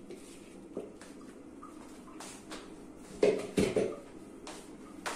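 Kitchen handling clatter: a few light knocks, then a louder cluster of knocks and clatters about three seconds in, and one more knock near the end, as sliced onion goes from a plastic mixing bowl into a slow cooker's crock and the utensils are put down.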